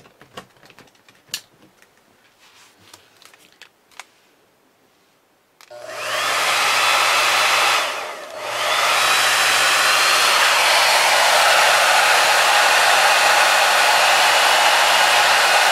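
A few light clicks of handling, then about six seconds in a hair dryer switches on and blows steadily, dipping briefly about two seconds later before running on. It is warming a knitting machine carriage to soften old, stiff oil.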